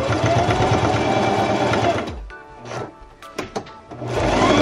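Singer Heavy Duty sewing machine stitching at speed, the needle rattling rapidly and the motor pitch rising then falling. It stops about two seconds in, a few light clicks follow, and it starts stitching again near the end.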